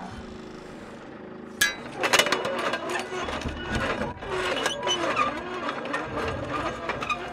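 Small electric belt sander running, with a tool steel rod pressed against its belt to grind off the sharp edges. The grinding starts sharply about a second and a half in, and the machine's pitch wavers as the steel is worked against the belt.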